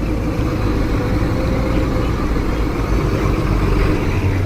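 Heavy earthmoving machinery's diesel engine running steadily, a constant low drone.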